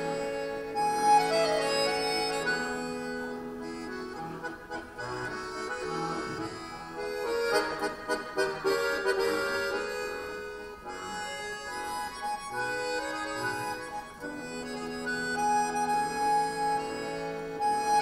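Two button accordions playing a duet: held reedy chords with quick runs of notes over them, growing busier and louder about halfway through before settling back into sustained chords.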